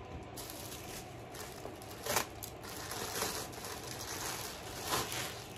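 Plastic packaging crinkling and rustling as it is handled, with louder crackles about two seconds in and near the end.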